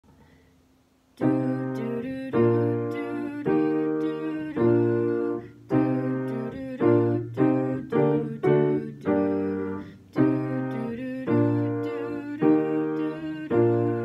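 Upright piano played solo in a minor key: chords struck about once a second and left to ring, with quicker strikes of about two a second in the middle. It begins about a second in.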